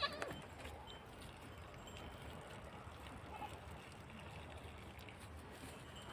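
A goat's bleat cuts off right at the start, followed by faint, steady background noise with no clear source.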